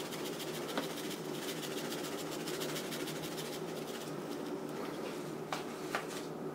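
Faint rapid crinkling and pattering as dried thyme is shaken from a plastic bag onto a raw pork roast, with a low steady hum underneath. A couple of small clicks come near the end.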